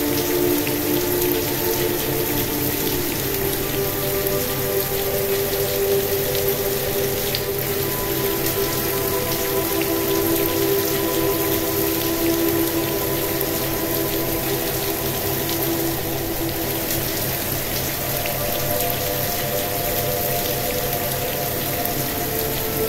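Steady rain mixed with relaxation music: long held tones that slowly change from one chord to another.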